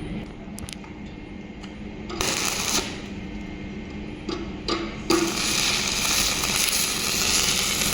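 Electric welding arc from a 630-amp welding machine. A short burst of crackling comes about two seconds in, then a couple of sharp ticks. A little after five seconds the arc strikes and crackles steadily to the end, over the steady hum of the machine.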